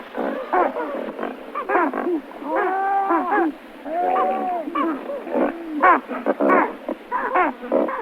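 Pelicans calling: a dense run of short, overlapping calls that rise and fall in pitch, with a couple of longer drawn-out calls about three and four seconds in.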